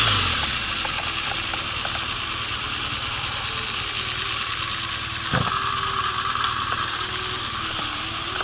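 BMW R 1200 GS boxer-twin engine running under a steady rushing noise on a helmet-mounted camera as the motorcycle slows and pulls up, with a short thump about five seconds in.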